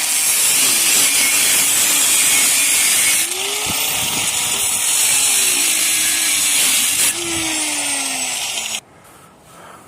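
A power tool cutting into the steel shell of a refrigerator compressor: a loud, steady cutting hiss with a wavering tone underneath, briefly easing about three and seven seconds in, then stopping abruptly near the end.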